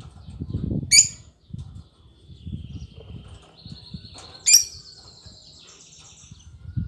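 Lovebird calling: two sharp, shrill chirps about three and a half seconds apart, with softer twittering between them over low rustling.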